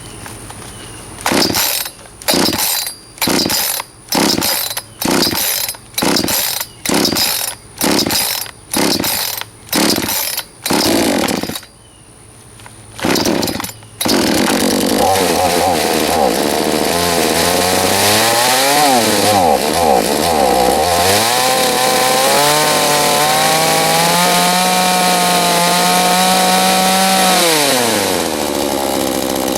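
A Chinese-made two-stroke chainsaw being pull-started: about a dozen quick pulls of the starter cord a little under a second apart, before the engine catches about 14 seconds in. It then runs, revved up and down several times, held at high revs for a few seconds, and drops back to idle near the end.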